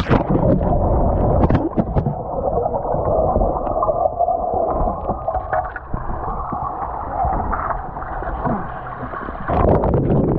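A splash as the kayak goes over, then muffled rushing and gurgling river water heard with the camera submerged, the higher sounds cut off. About nine and a half seconds in it turns louder and clearer as the camera nears the surface.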